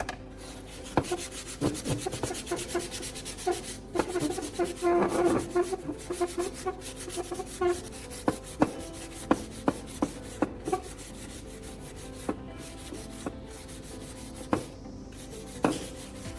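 Sandpaper rubbed by hand over a repaired plastic fender: irregular scratchy rubbing strokes, a few of them sharper than the rest.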